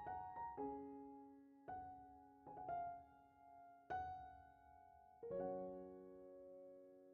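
Quiet background piano music: slow, gently struck single notes and small chords that ring out, with a fuller chord held and fading away over the last couple of seconds.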